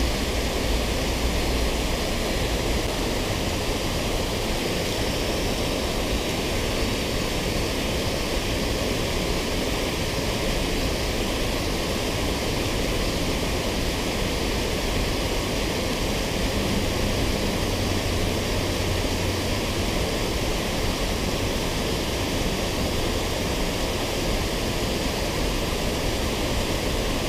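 Water spilling over a low concrete weir into a river pool: a steady, unbroken rushing.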